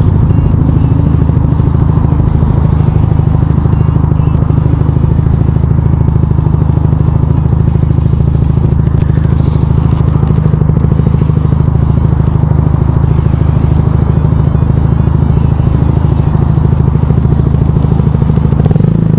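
Yamaha YZF R125's single-cylinder 125cc four-stroke engine running at a steady speed while the bike is ridden, its note holding constant.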